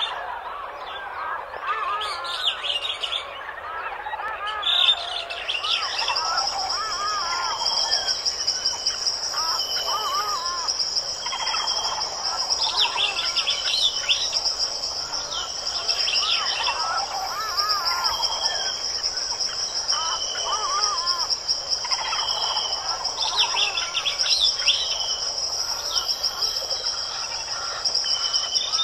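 Many small birds chirping and singing over one another. From about five seconds in, a steady high-pitched insect trill runs beneath them.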